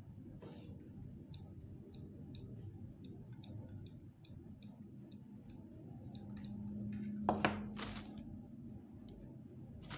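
Scattered small clicks and rustles of hands handling an artificial flower arrangement and craft tools. About seven seconds in, two louder rustles as a hand reaches into a plastic bag of moss.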